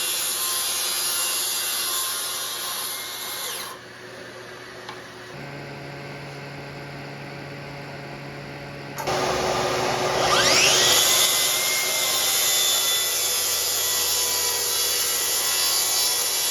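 Electric power tools working white oak, most likely the track saw cutting the tabletop to size. A loud cut stops suddenly about four seconds in, and a quieter steady hum follows. About nine seconds in a motor starts, spins up with a rising whine, and runs on loudly.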